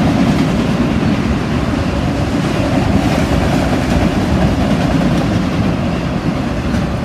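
Norfolk Southern freight train rolling past, a loud steady rumble of cars with wheels clacking over the rails, easing off slightly toward the end.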